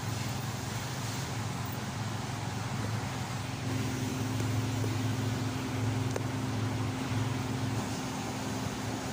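A steady low machine hum. About three and a half seconds in, a higher buzzing tone joins and it grows louder for about four seconds before easing back.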